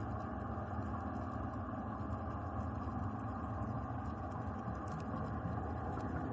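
Steady underwater rumble with faint steady hums and a few faint scattered clicks.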